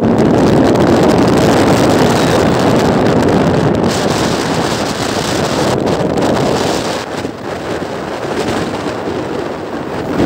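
Wind rushing over the microphone of a motorcycle travelling at speed, with the bike's running and tyre noise underneath; the rush eases slightly about seven seconds in.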